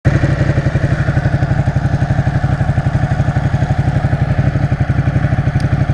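Ducati 899 Panigale's V-twin engine running steadily at low revs, a fast even pulse of about a dozen beats a second with no revving.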